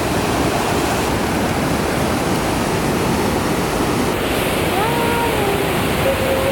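Waterfall rushing in a steady, loud roar of water.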